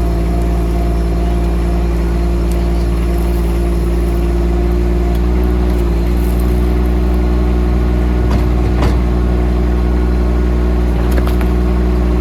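Huayee SHY15 mini excavator's engine running steadily while it digs a trench, with a few brief knocks about eight and eleven seconds in.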